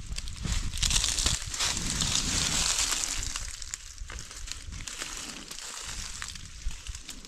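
Hands rustling through leafy branches and picking off tender shoots, with small crisp snaps and crinkles. The rustle is loudest between about one and three seconds in, then softer.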